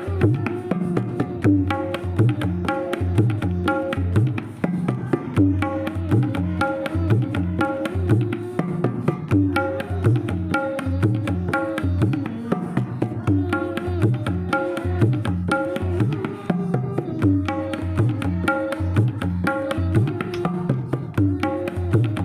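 Background instrumental music with a steady, repeating drum rhythm and melodic notes over it.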